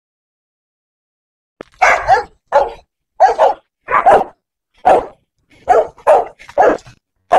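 A dog barking repeatedly, about nine barks at a steady pace beginning about two seconds in.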